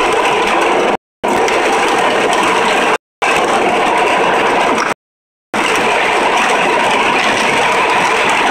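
Honda Accord 3.0L V6 running under way, with steady engine and road noise; this engine is logging random and cylinder 1–6 misfire codes. The sound cuts out to silence three times, briefly.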